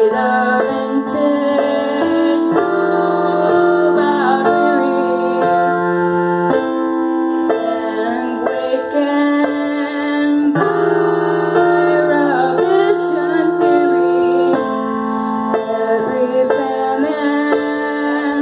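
A woman singing while accompanying herself on a keyboard, slow sustained chords changing every few seconds under her voice.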